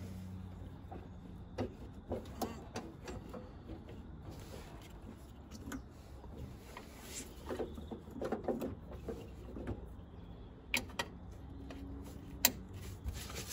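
Hands handling spark plug leads around an engine bay: scattered rustling and light knocks, with a few sharp clicks near the end as a lead is pushed onto the distributor cap.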